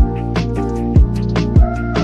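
Background music with a steady beat: a kick drum about every 0.6 seconds under sustained synth and instrument notes.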